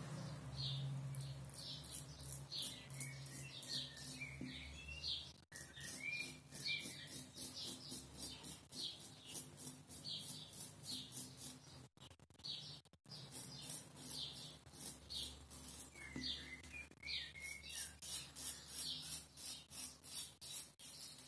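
Hand-forged kamisori straight razor rasping through four-to-five-day stubble in quick short strokes, about four a second, with brief pauses. Birds chirp now and then behind it.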